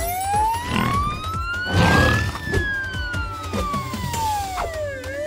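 Cartoon ambulance siren wailing: one slow rise and fall in pitch, starting to climb again near the end, over background music.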